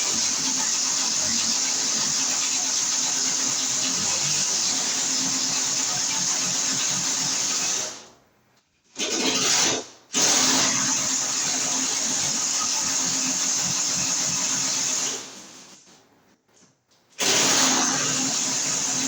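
Electric drill boring a hole, running at steady speed. It stops just before the halfway point, gives a short burst, runs again, then winds down and starts up once more near the end.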